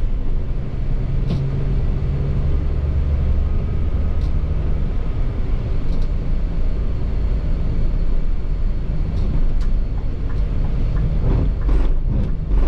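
Scania K360iB bus's five-cylinder diesel engine running steadily on the road, heard from inside the bus as a low drone with road noise. A few sharp clicks and rattles cut through it.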